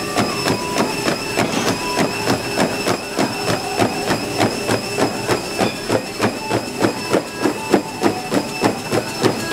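Running footfalls pounding a treadmill belt at a fast 17 km/h pace, about three strides a second, over the steady high whine of the running treadmills.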